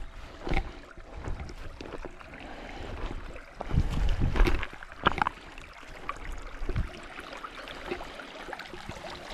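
Irregular rustling and knocking, with a louder cluster of thumps near the middle, over a faint trickle of creek water.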